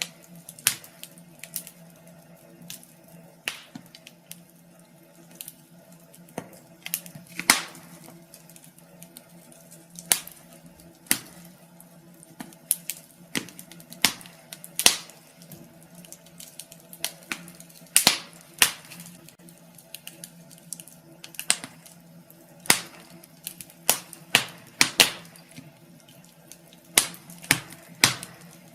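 Wood fire burning in a fireplace, crackling with irregular sharp pops and snaps, a few of them much louder than the rest, over a faint steady hum.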